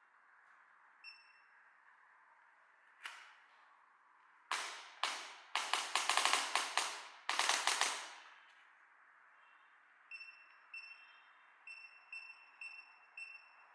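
Electric chiropractic adjuster gun (1200 N) with a digital display. A short beep and a single impulse click come first, then a few seconds of rapid-fire impulse clicks, the loudest part. A string of about seven short beeps from its keypad follows as the settings are changed.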